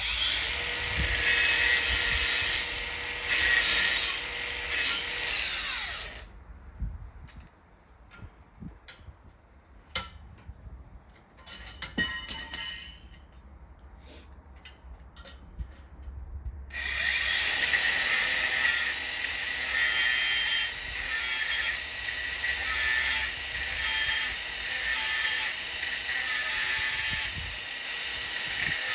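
Sandpaper on a flexible sanding block rubbing over primed car bodywork in back-and-forth strokes, a hissy scraping that swells and fades with each stroke. It stops for about ten seconds of scattered clicks and knocks, then starts again.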